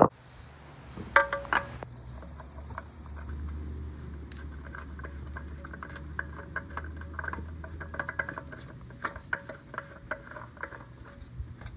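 A new spin-on oil filter being screwed on by hand: a run of small scratching, rubbing and ticking sounds as fingers turn the canister, with a few louder clicks about a second and a half in, over a faint steady low hum.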